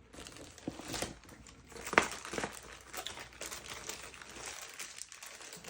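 Packaging being crinkled and rustled as items are taken out of a box: a dense run of small crackles, with one sharper crackle about two seconds in.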